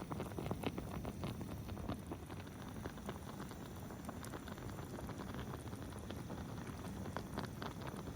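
Wood campfire crackling, with many small irregular pops and snaps over a soft hiss.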